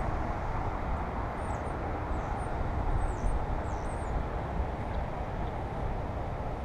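Steady outdoor background noise, a low rumble with hiss, with a few faint high chirps between about one and four seconds in.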